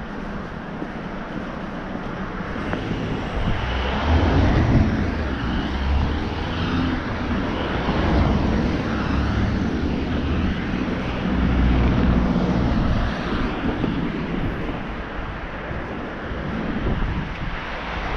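City street traffic: cars passing along the road, a steady rumble that swells as vehicles go by, loudest about four seconds in and again around twelve seconds.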